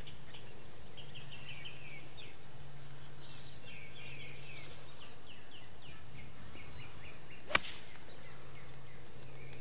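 A golf club striking a ball on a tee shot: one sharp crack about seven and a half seconds in, the loudest sound. Small birds chirp throughout over a steady low hum.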